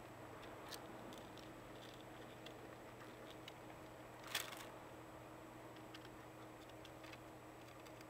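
Faint scattered clicks and rustles of sunflower seeds shifting as a chipmunk forages in a feeder tray, with a louder short cluster of clicking a little past the middle, over a faint steady hum.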